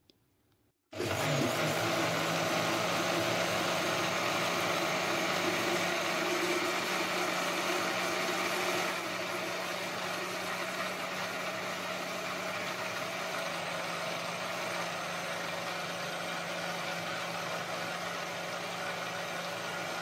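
Countertop jug blender switched on about a second in, its motor running steadily as it blends frozen raspberries, banana, spinach and water into a smoothie. It gets slightly quieter about nine seconds in.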